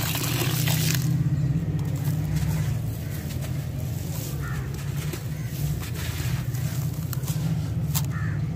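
Water pouring into a tub of dry sand and dirt for about a second. After that, hands mix and squeeze the wet, gritty sand, with many small crackles and clicks. A steady low hum runs underneath.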